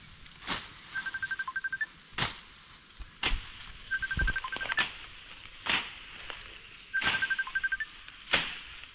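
Grass and ferns swishing and rustling several times as someone pushes through dense undergrowth, with a low thud about four seconds in. Behind it, a call of about six quick, even high pips ending on a slightly higher note repeats about every three seconds.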